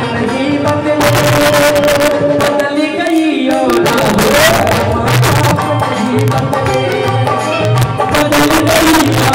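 Live Indian devotional stage music: a melody line holding long notes over steady tabla-style hand-drum beats.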